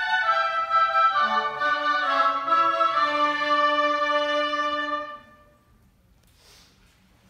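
Oboe and English horn ensemble playing held, overlapping notes in chords, with a low sustained note under the upper voices. The playing stops about five seconds in, and near silence follows.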